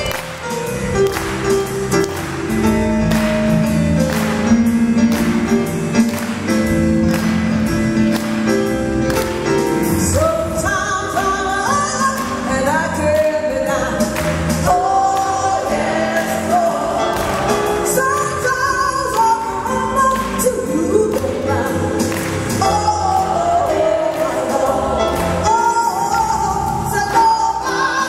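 Gospel music: an electronic keyboard plays sustained chords, and singing comes in about ten seconds in, the voices gliding over the accompaniment.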